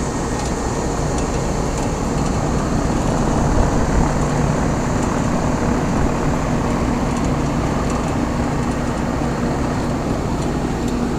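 1995 Rheem Classic 5-ton central air-conditioner condensing units running: a steady rush of condenser-fan air with a low, even compressor hum.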